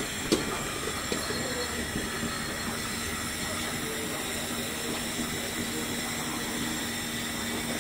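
A steady mechanical hum with hiss, and a short knock about a third of a second in.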